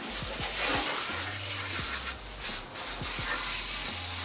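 Water jetting from a garden hose nozzle onto a 4x4's tyre and wheel arch, a steady hiss of spray.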